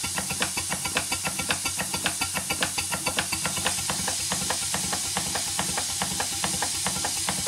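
Twin Stuart 5A model steam engines running on steam: a steady hiss of steam with rapid, regular knocking. The knocking is the fault being chased, which the owner suspects comes from play in the chain-and-sprocket coupling between the two crankshafts.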